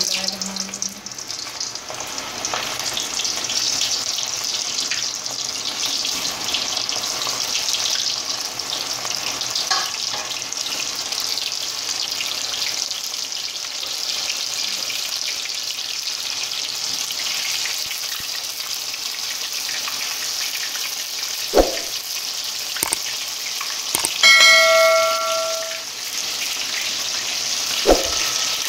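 Coated chicken pieces deep-frying in hot ghee, a steady bubbling sizzle. Late on, a couple of sharp knocks and a short ringing tone of about a second.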